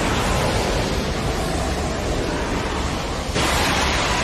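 Anime sound effect of a Susanoo, a giant chakra warrior, surging up: a loud, rushing wind-like noise that starts suddenly and swells again about three and a half seconds in.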